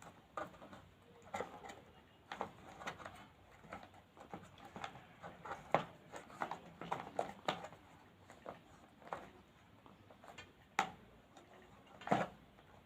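Faint, irregular clicks and rustles of hands handling an electric blender's power cord and plastic housing while a knot is tied in the cord as a strain relief.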